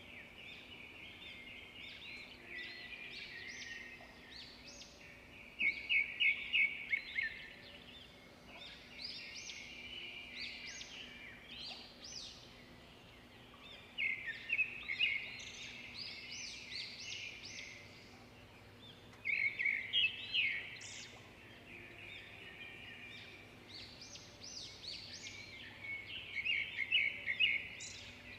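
Songbird singing in long running phrases of fast trills and chirps, with a louder burst of rapid trills four times.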